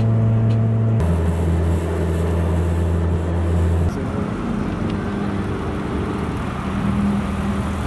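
Car engines running steadily, heard across quick cuts. First a steady low drone from a car cruising on the highway, then from about four seconds in a Subaru WRX rolling slowly past, engine running under light throttle.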